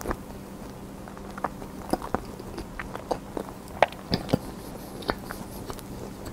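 Close-miked eating: chewing and biting with irregular sharp mouth clicks and smacks, the loudest a little past the middle, over a faint steady hum.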